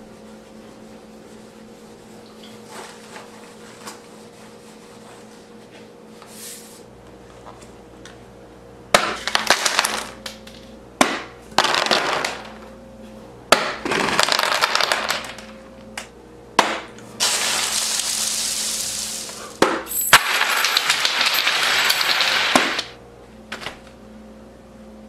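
Paper crumpled and torn by hand: after a quiet stretch, a series of loud crackling, rustling bursts, some lasting two or three seconds, with sharp cracks between them.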